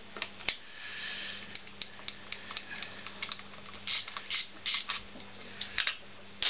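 Hand tools and small metal engine parts clicking and clinking as they are handled, with a few louder scrapes about four to five seconds in.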